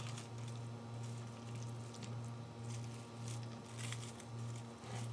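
Beef noodle soup squishing and sliding out of a plastic takeaway bag into a bowl, with faint rustling of the bag. Under it runs a steady low hum that pulses regularly, a little under twice a second.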